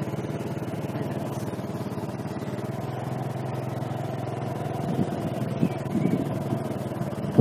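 Motorcycle engine running steadily at low road speed, heard from on board, with a couple of brief knocks in the second half.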